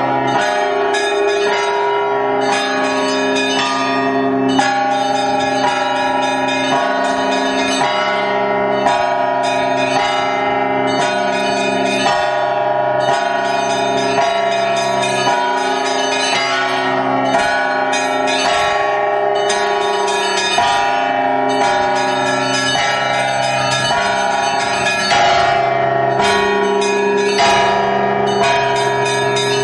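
Russian Orthodox church bells rung by hand from the belfry, close up. A ringer pulls the clapper ropes of the small and large bells in a continuous rhythmic peal, many bells overlapping and ringing on with no pause.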